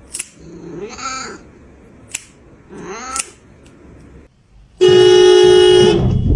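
Domestic cat giving two short meows, each rising and falling in pitch, with a few sharp clicks. Near the end comes a loud, dead-steady held tone lasting about a second and a half, the loudest sound here.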